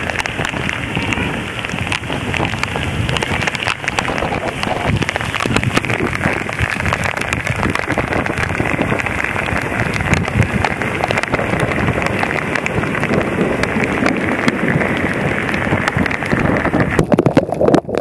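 Loud rain pelting a surface close to the microphone, a dense, steady patter of drop hits during a thunderstorm downpour.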